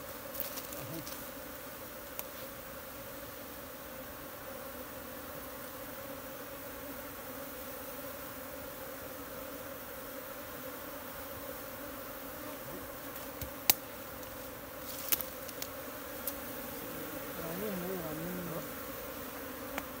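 Swarm of honey bees buzzing in a steady, even drone. Two short sharp clicks stand out a little past the middle.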